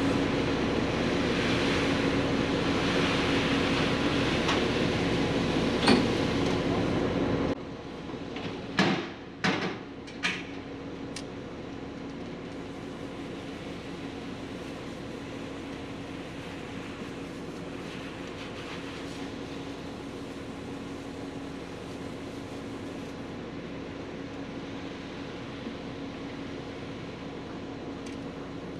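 An engine running steadily with a low hum. About seven and a half seconds in it drops abruptly to a quieter steady hum, and a few sharp knocks follow.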